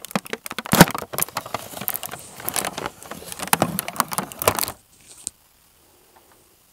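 Plastic shrink wrap on a model train kit box crinkling as a lavalier microphone is rubbed directly on it: close, loud rustling full of sharp crackles that stops suddenly about five seconds in.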